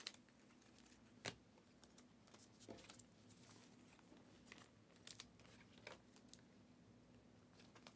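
Near silence with a few faint clicks and rustles of a stack of Panini Prizm trading cards being handled and flipped through by hand.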